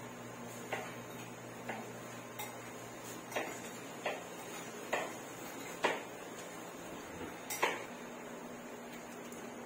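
Dishes and utensils being handled and set down in a kitchen: about eight short, sharp clinks and knocks at irregular intervals, over a steady low hum.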